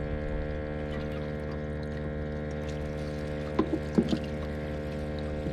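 Rental skiff's small outboard motor idling steadily, with a few short knocks about two-thirds of the way through.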